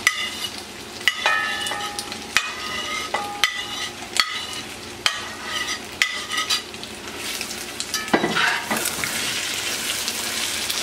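Metal spatula scraping shrimp off a plate into a pot of frying rice, striking about once a second with a short metallic ring each time, over a steady sizzle. From about seven seconds in, the strikes give way to continuous stirring and scraping in the pot as the shrimp are mixed into the rice.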